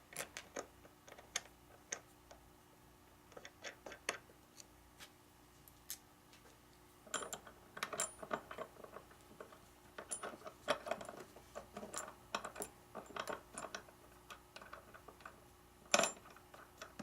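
Scattered clicks and light metallic clinks of small jig hardware being handled and fitted: brackets, Allen screws and washers. The clinks come thicker in the middle, with one sharper knock near the end.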